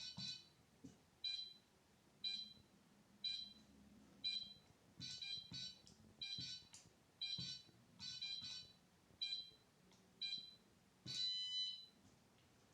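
Electronic beeper of a timer bomb prop sounding short high beeps about once a second as its countdown runs, with extra quick beeps and soft clicks in between. A longer beep with a different tone comes near the end.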